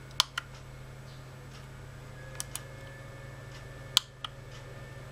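Small sharp clicks in three pairs, the loudest about four seconds in, from a handheld component tester and its crocodile-clip leads being handled and its push button pressed, over a steady low hum.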